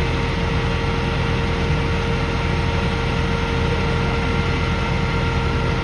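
A heavy engine idling steadily: an even low rumble with a constant hum over it.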